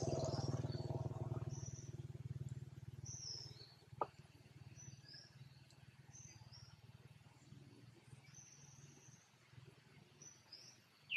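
Quiet forest ambience: short high-pitched chirps repeat every second or so throughout. A low hum fades out over the first few seconds, and there is one sharp click about four seconds in.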